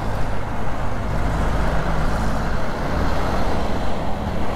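Motor scooter cruising in city traffic: a steady engine hum under a constant rush of road and traffic noise.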